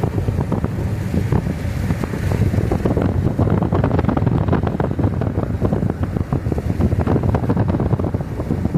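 Road and wind noise inside a car driving at speed, a steady low rumble with a dense patter of small ticks.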